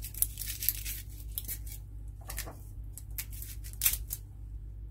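Dry onion skin crackling and gloved hands rustling as a small red onion is pushed onto a wooden skewer: a run of short, sharp crackles.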